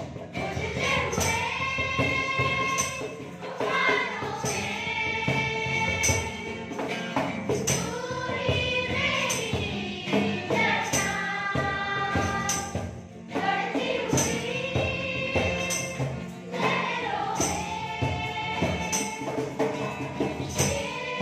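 A group singing a Christian worship song together, over a steady percussion beat.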